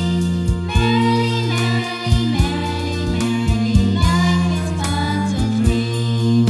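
Nursery-rhyme backing music: a sustained bass line and melody with a regular beat.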